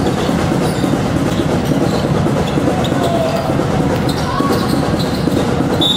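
Basketball game noise in a gym: a steady din of voices with a ball bouncing and sneakers squeaking on the court, and a short high whistle near the end.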